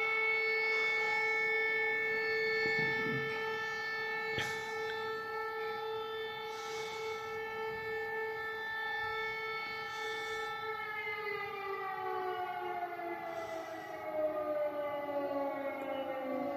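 Civil defence air raid siren sounding a long steady tone, then winding down with its pitch falling steadily over the last five seconds or so.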